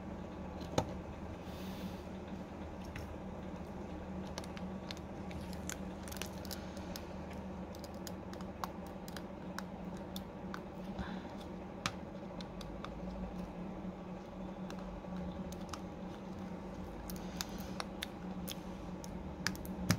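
Small clicks and light scraping from a precision screwdriver and fingers working on an opened smartphone: screws driven into the midframe and flex-cable connectors snapped onto the board. The clicks are sparse at first and come in a short cluster near the end, over a steady low hum.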